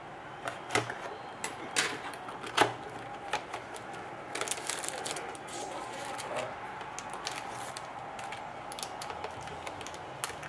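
Scissors snipping and clicking as a cardboard trading-card box is cut open, a few sharp separate clicks, then a stretch of crinkling and light ticking as foil card packs are handled and lifted out of a plastic tray, over a faint steady hum.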